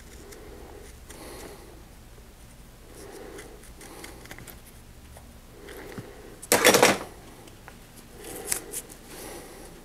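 Small scissors snipping and trimming cloth rim tape, with quiet rustling as the tape is handled. A short, much louder burst of noise comes about two-thirds of the way through, followed by a few smaller ones.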